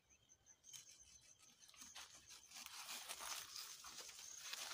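Panga (machete) cutting into the base of sisal leaves, with rustling and crackling of the stiff leaves and dry grass around it; faint, growing louder over the last couple of seconds.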